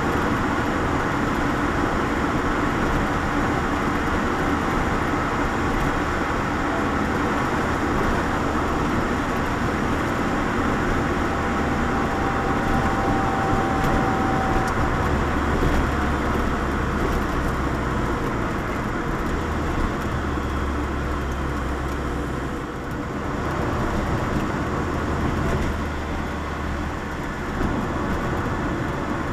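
Lotus Elise on the move, heard from inside the cabin: steady engine and tyre noise with a deep rumble. The noise dips briefly about two-thirds of the way through.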